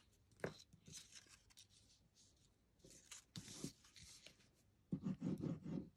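Paper and card being handled on a craft desk: scattered light taps and clicks, a short rustle of card sliding across the desk, and a louder muffled stretch of handling noise near the end.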